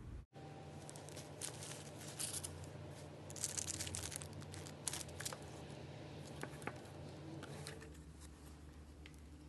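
Plastic packaging on a slime jar crinkling and tearing as it is unwrapped: a run of sharp crackles, busiest around the middle and thinning out after.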